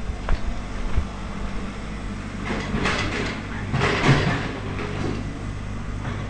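Steady low motor-vehicle hum, with two louder swells of noise a little before the middle.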